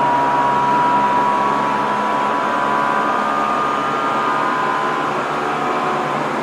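Tokyo Metro 07 series electric train running between stations, heard from inside the car: a steady rumble of wheels and motors with a few thin high tones that fade slowly.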